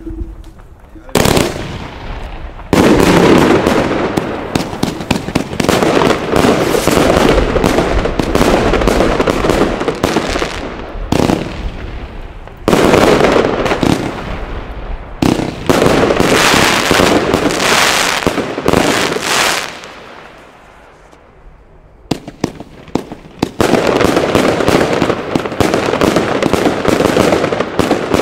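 Funke Green Goblin 131-shot 25/30 mm firework battery firing, starting about a second in: a rapid, continuous string of launches and bursts. The shots thin out for about two seconds near twenty seconds in, then come thick and fast again.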